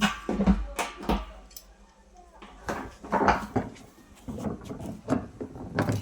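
Irregular knocks and clatter of tools and fittings being handled while a tank nipple is fitted to a water tank, with a short lull about two seconds in.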